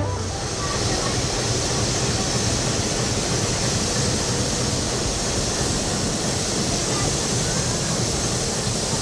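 Steady railway-station ambience: an even rushing noise with no distinct events.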